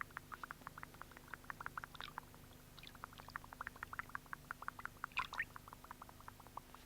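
Faint, quick plinks of small water drops, several a second and irregular, with a slightly stronger one about five seconds in, over a low steady hum.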